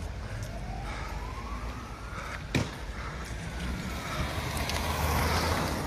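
An emergency-vehicle siren wailing, its pitch rising slowly over about two seconds, with a single sharp pop about two and a half seconds in that is the loudest sound.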